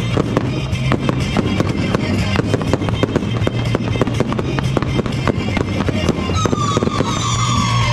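Daytime colour-smoke fireworks going off in a rapid, dense string of bangs and crackles, several a second, over music with a steady bass.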